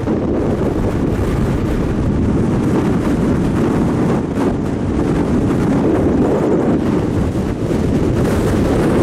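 Strong wind blowing across the microphone: a loud, steady low rumble with brief dips.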